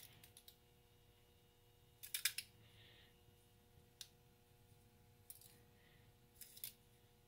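Spice shaker of lemon pepper shaken over fish fillets: a handful of short, faint rattling shakes, the loudest about two seconds in.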